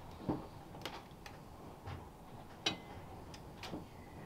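Metal fork scraping and clicking against the inside of a glass jar of sauerkraut as it is dug out: about six light, irregular clicks and taps, the sharpest about two and a half seconds in.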